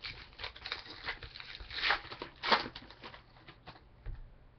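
Topps Chrome baseball cards being handled and flipped through by hand: a run of small clicks and rustles, with two louder snaps a little before and a little after halfway.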